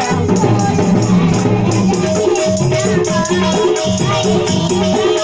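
Devotional bhajan instrumental passage: harmonium playing a repeating melody over hand-drum strokes and a steady shaken rattle.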